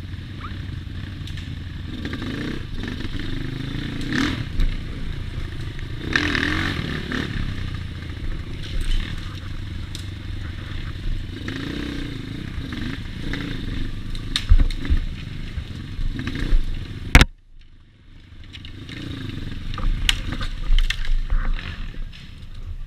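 Off-road trail motorcycle engine running and revving up and down while riding a rough trail, with knocks and clattering from the bike and stones under the tyres. After a sharp knock about seventeen seconds in, the sound drops away abruptly for about a second, then returns.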